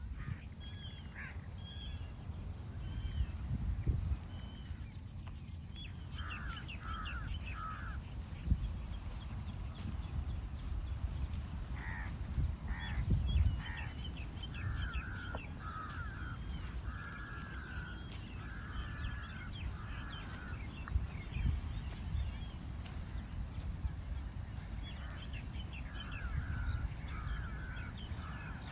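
Crows cawing in short runs of three to five calls, with smaller birds chirping and a steady high-pitched insect drone; a low rumble sits underneath.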